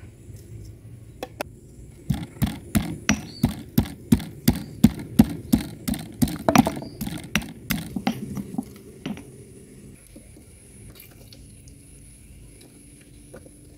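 Stone pestle pounding shallots and garlic in a black stone mortar: a run of sharp knocks, about three a second, that stops about nine seconds in.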